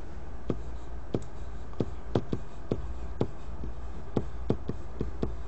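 Light, sharp clicks and taps at irregular spacing, about two or three a second, as of a pen or stylus at work, over a steady low electrical hum.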